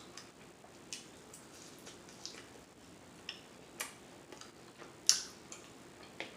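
Close-miked mouth sounds of someone eating: irregular wet smacking clicks from the lips and tongue while chewing, with one sharper, louder smack about five seconds in.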